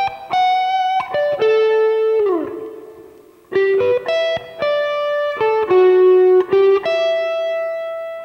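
Electric guitar playing triads one note at a time, arpeggio-style, over E minor and D major. Two short phrases with a brief pause about three seconds in, each ending on a note that slides down in pitch.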